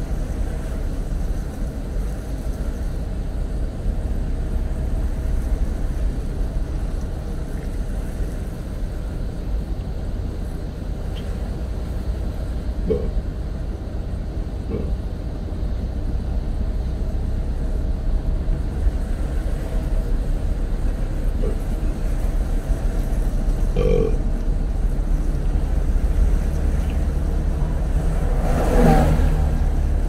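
Car driving along a road: a steady low engine and road rumble, with a few faint brief sounds and one louder, short sound near the end.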